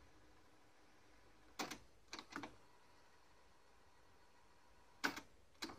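Short mechanical clicks of the Technics RS-B11W cassette deck's transport keys being pressed: one click about a second and a half in, a quick pair about half a second later, and two more clicks around five seconds in. It is nearly silent between the clicks.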